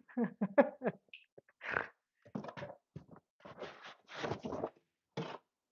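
A house cat meowing, several short calls in the first second, followed by rustling and handling noises from a cardboard box being reached into.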